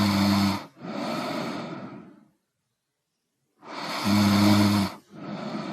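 A person snoring: a low buzzing snore followed by a breathy exhale, twice, with about a second of quiet between the cycles.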